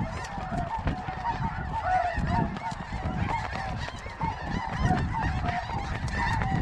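A large flock of snow geese calling overhead: a continuous din of many overlapping short, high honks. A low rumble of wind runs underneath.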